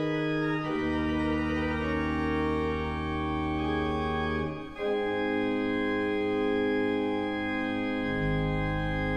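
Organ playing slow, sustained chords over a low bass note. The chord changes after a brief dip a little under halfway through, and a deeper bass note comes in near the end.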